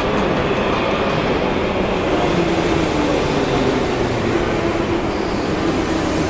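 Alaska Railroad train rolling past, a steady loud rumble with a low hum that sinks slightly in pitch over the last few seconds.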